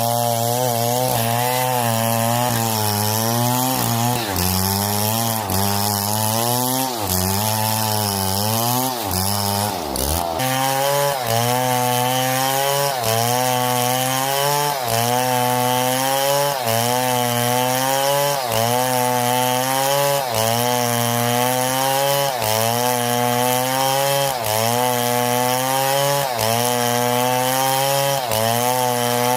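Two-stroke chainsaw cutting through wood, its engine pitch sagging under load and picking up again about every one and a half seconds as the chain bites and eases. There is a sudden change about ten seconds in, after which the same rhythmic cutting carries on.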